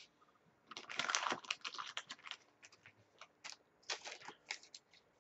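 Trading cards handled between the fingers: a short rustle of cards sliding against each other about a second in, then a string of light clicks and ticks as the cards are flipped through one by one.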